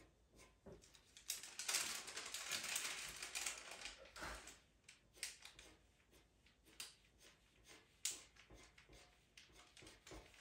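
Pastel pencil scratching on pastel mat paper in quick short strokes: a dense run of rapid strokes in the first few seconds, then separate single strokes and light taps.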